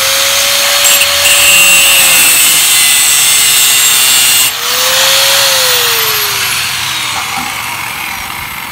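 Angle grinder with a cut-off disc cutting through a scooter's stock exhaust pipe, a loud grinding hiss over a high motor whine. About halfway through the sound breaks off briefly and starts again. The motor then winds down, its whine falling and the noise fading toward the end.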